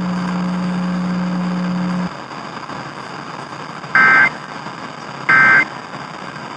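Emergency Alert System end-of-message signal after a Required Monthly Test: two short, shrill digital data bursts about 1.3 seconds apart, with a third starting right at the end. These are the SAME/EAS "NNNN" end-of-message code. Before them a steady low hum cuts off about two seconds in, leaving radio hiss.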